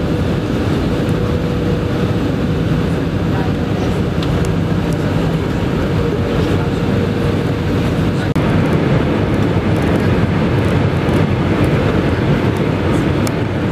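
Airbus A319 cabin noise on approach and landing: the steady rumble of engines and airflow with a faint steady hum. A cut comes about eight seconds in, and the noise is a little louder after it.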